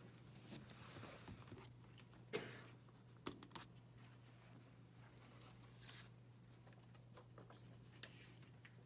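Pencil drawing on paper: faint scratching strokes with a few light taps, over a steady low hum.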